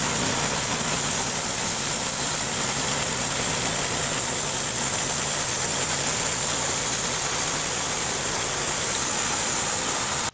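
Portable bandsaw sawmill cutting a log: its gas engine runs steadily under load as the band blade travels through the wood, with a strong high hiss.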